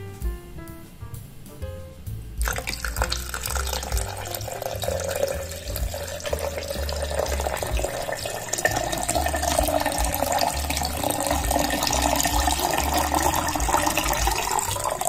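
A stream of water pouring into a blender jar, starting suddenly about two seconds in and running steadily, its pitch rising gradually as the jar fills. Background music plays throughout.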